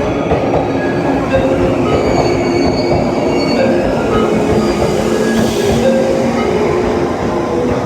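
JR 185-series electric train running along the track: steady rail and running noise with short squeals scattered throughout.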